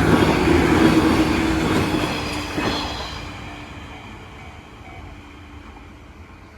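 Train passing close by at speed, loud at first and then fading away over about four seconds as it recedes.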